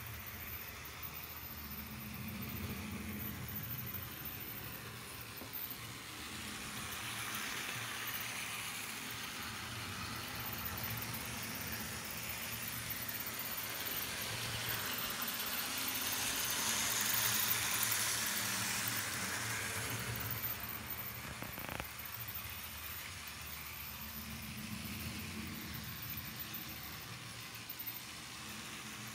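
TT-scale BTTB model train running on its track: a steady motor hum and wheel rumble that swells to its loudest about two-thirds of the way through, with a single click a little later.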